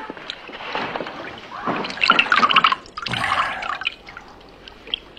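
Bathwater splashing and dripping as a man rises out of a full bathtub, loudest in a couple of bursts from about two to three and a half seconds in, then settling to light drips.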